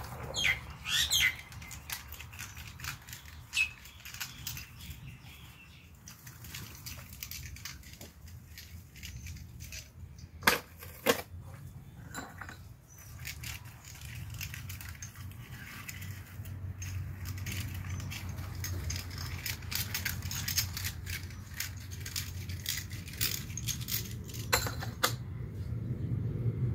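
Metal clinks and knocks of truck axle gears and bearings being handled and set down on a steel plate, with two sharp louder knocks about ten and eleven seconds in. A low steady hum runs underneath.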